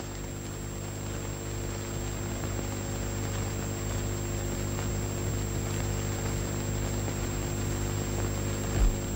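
Steady hiss and mains hum from the worn soundtrack of an old film print, with no speech. A brief low thump near the end.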